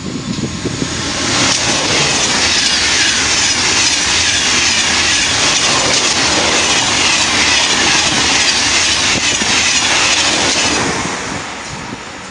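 Two coupled TGV Duplex double-deck high-speed trainsets (Duplex 250 and EuroDuplex 4720) passing at speed. Their wheels on the rails and the air around them make a loud, steady rushing noise that builds over the first second or two, holds for about nine seconds, and dies away near the end.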